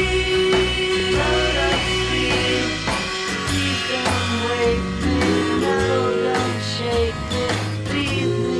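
Rock music with guitar, its melody in long held notes over a steady bass line.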